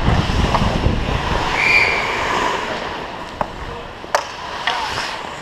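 Ice hockey play heard from a skater-mounted camera: a rushing noise from skating and air movement for the first couple of seconds, fading as play slows, then two sharp knocks, about three and a half and four seconds in.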